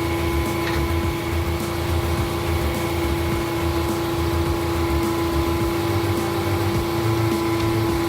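Sawmill machinery running steadily: a constant mid-pitched hum over an uneven low rumble.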